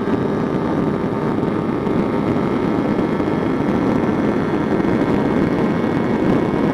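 Kawasaki Ninja 250R's parallel-twin engine running steadily at high revs near top speed, with heavy wind rush over the motorcycle.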